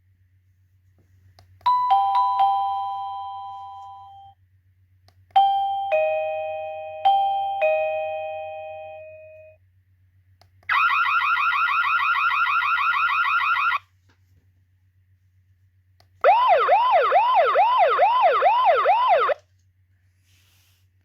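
X-Sense wireless doorbell receiver cycling through its ringtones. First a two-note falling ding-dong, then a four-note ding-dong-ding-dong chime, then a fast electronic trill lasting about three seconds. Last comes a siren-like tone of quick rising sweeps lasting about three seconds, with a low steady hum underneath.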